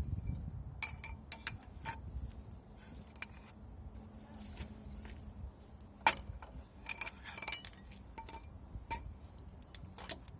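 Metal hand tools clinking and tapping on metal: a scattered series of short, ringing strikes, the loudest about six seconds in.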